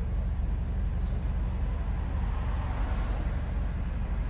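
Hyundai Tucson 2.0 exhaust with the rear muffler removed, the engine running with a steady, deep drone.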